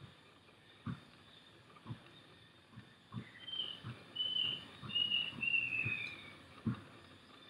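Scattered raindrops knocking dully on a car body at irregular intervals. Midway a bird calls four high whistled notes, the last longer and falling.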